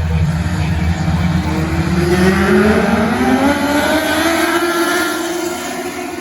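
Micro sprint race car engines running hard, one rising steadily in pitch as it accelerates from about a second and a half in, then holding and easing off near the end.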